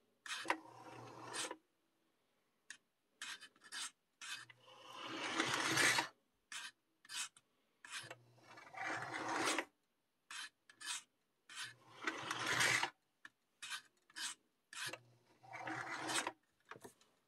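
Williams O gauge model locomotive's electric motors and gears whirring as its wheels run along the rails, driven back and forth. It runs in many short starts and stops, with a few longer runs that grow louder as it speeds up.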